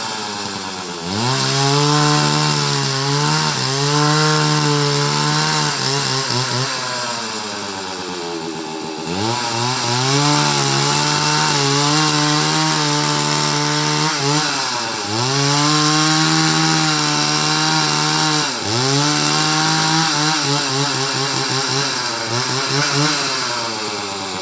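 Chainsaw running hard while cutting into a coconut, with a high whine over a hiss of chain noise. Its revs sag and climb back up several times as the chain bites.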